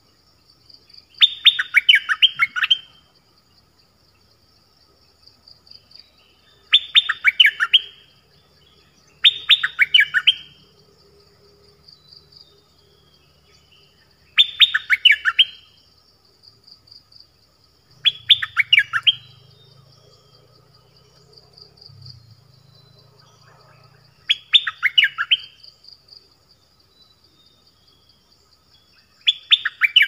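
Caged songbird of the kind called 'nok dok taeng' in Thailand, used as a decoy to lure wild birds, singing seven short bursts of quick repeated notes every few seconds. A steady high insect buzz runs behind it.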